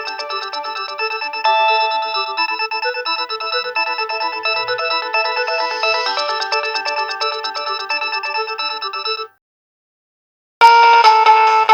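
Nokia 6030 polyphonic ringtone playing: a quick electronic melody of short, evenly spaced notes that stops about nine seconds in. After a second or so of silence, another, louder ringtone starts.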